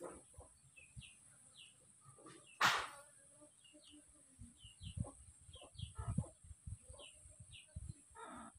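Small birds chirping in short, quick notes, over soft handling noise from fingers threading an earthworm onto a fishing hook: low bumps and clicks, with one brief loud rustle about two and a half seconds in. A thin steady high whine runs underneath.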